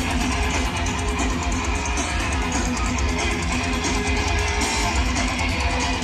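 Rock band playing an instrumental live: electric guitar strumming over bass and drums, recorded from the audience with a heavy bass.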